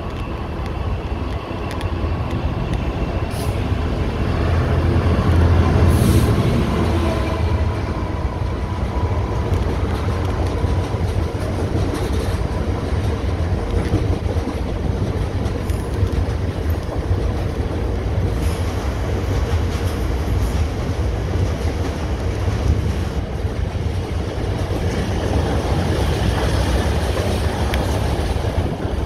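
Freight train passing close below. The locomotive's diesel engine runs low and is loudest about six seconds in as it goes underneath. Then a long rake of covered hopper wagons rolls by with steady wheel-on-rail noise and clatter, and a trailing locomotive comes through near the end.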